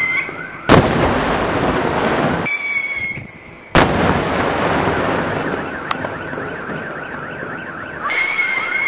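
Daylight aerial fireworks: two sharp, loud bangs, about three seconds apart, each followed by a long rolling echo. A steady high whistle comes before the second bang and again near the end, with a rapid run of short chirping whistles underneath.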